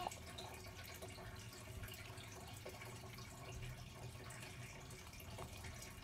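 Quiet room tone with a steady low hum and a few faint, light clicks and taps of small plastic toy pieces and dolls being handled.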